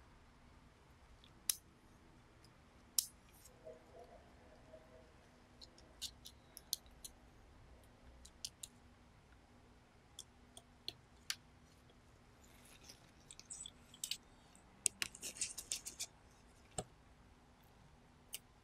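Light clicks and taps of hand tools and small metal parts on the sheet-metal tape mechanism of a Panasonic RQ-2730 cassette recorder, a few at a time. About two-thirds of the way through comes a short run of scratching and rapid clicking.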